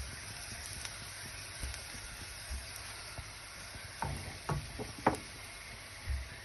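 Butter-coated paratha sizzling steadily in a hot pan, with a few light knocks about four to five seconds in.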